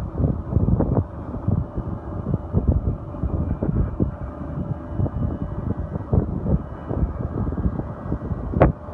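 Wind buffeting the phone's microphone in uneven gusts on an open ship's deck, with a brief sharp knock near the end.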